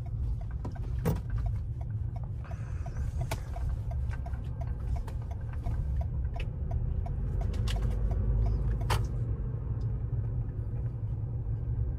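Inside the cabin of a Toyota RAV4 pulling in at low speed: a steady low rumble from the car rolling and running, with a regular light ticking about two to three times a second, typical of the turn signal, and a few sharp knocks.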